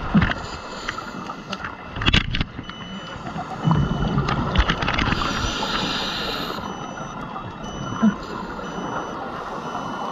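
Scuba divers breathing through regulators underwater: a hissing inhale and the rush of exhaled bubbles, with the longest burst of bubbles a little past halfway. A faint high electronic beep repeats through the middle and later part.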